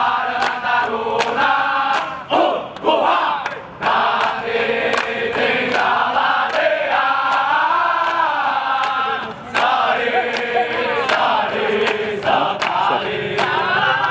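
A large group of male military cadets chanting a song together in unison, loud and sustained, the pitch rising and falling with the tune.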